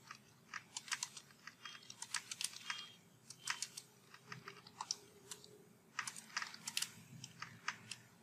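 Computer keyboard being typed on: quick irregular runs of keystrokes with a couple of short pauses.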